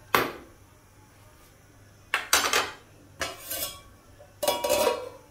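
Metal cookware clattering: a steel ladle knocking against an aluminium cooking pot and its aluminium lid being handled. About four separate clanks, the last one ringing briefly.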